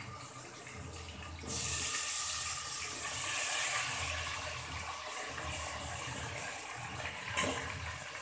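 Chopped tomatoes sizzling as they hit hot oil with frying shallots and green chillies in an aluminium pot. About a second and a half in the hiss jumps loud, then slowly settles to a steady sizzle. Near the end there is one sharp clank of the metal spoon on the pot.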